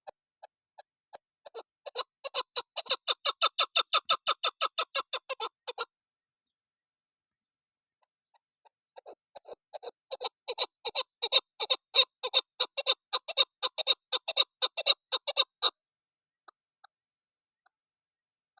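Female chukar partridge calling: a run of short, rapidly repeated chuk notes that starts sparse and speeds up to about four or five a second, then breaks off. After a pause of about three seconds, a second, longer and louder run builds the same way.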